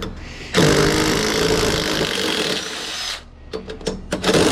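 Power drill running in two bursts: a long run of about two and a half seconds, a few short clicks, then a second run starting near the end, as fasteners are driven out of the switchgear.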